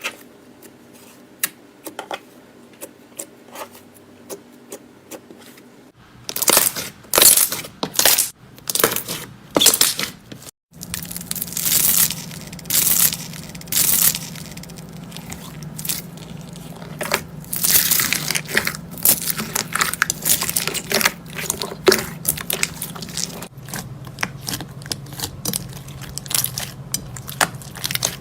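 Slime being pressed, poked and stretched by hand, making many quick crackling clicks and pops. The clicks are sparse and soft at first, then louder and denser from about six seconds in, changing abruptly a few times between short clips.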